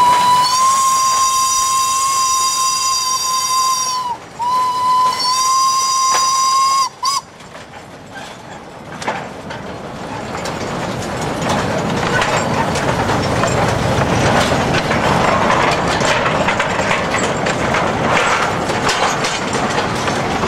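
Steam locomotive whistle giving a long steady blast, broken briefly about four seconds in and then sounding again until about seven seconds in. After it comes the rumble and clatter of the train and its empty steel cane wagons rolling past, growing louder.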